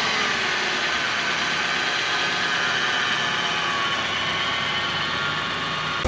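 Car engine idling just after starting, its speed easing down slightly as the idle settles.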